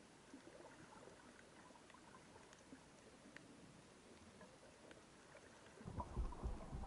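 Faint underwater ambience with scattered small crackling clicks. About six seconds in, a burst of low rumbling thumps of water moving over the camera.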